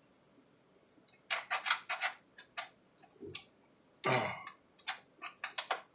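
Handling clicks and rattles from a USB cable being plugged into a light plastic camcorder: a quick run of clicks after about a second, a low knock and a brief rustle midway, then more scattered clicks near the end.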